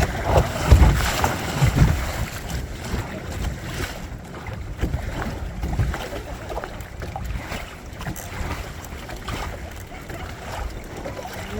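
Wind buffeting the microphone aboard a Windrider 17 trimaran under sail, with water washing along the hulls. The gusts are heaviest in the first two seconds.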